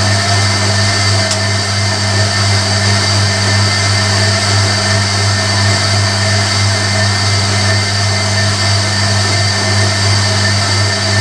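Hoover Electronic A3172 washing machine running: a steady, loud motor hum with a high whine above it, unchanging throughout.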